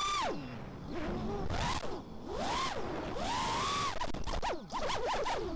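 FPV racing quadcopter's 2206 2300kv brushless motors with tri-blade props whining, the pitch swooping up and down as the throttle is punched and chopped through flips and rolls, with wind rush over the onboard camera. Near the end comes a quick run of short throttle blips.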